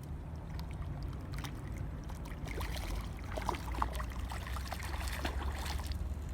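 Water splashing and trickling for a few seconds, starting a couple of seconds in and stopping shortly before the end, over a steady low rumble.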